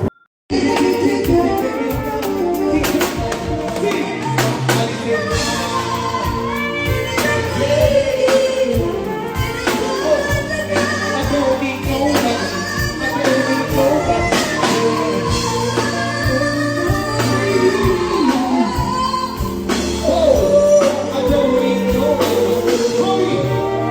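Amplified live music at a sound check: a singer over a band with steady bass and regular drum hits. It begins right after a brief dropout at the very start.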